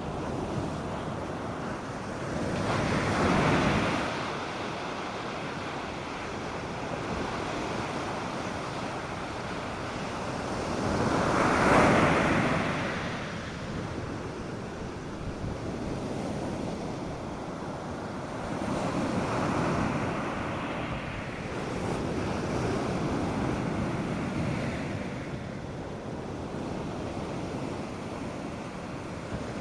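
North Sea surf breaking on a beach: a steady wash of water with waves swelling and breaking every several seconds, the biggest about halfway through, with a light wind in the background.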